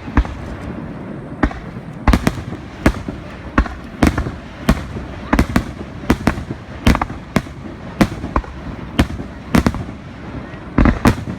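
Aerial firework shells bursting in a rapid, irregular series: about twenty sharp bangs, roughly one every half second, each with a short echoing tail over a continuous low rumble.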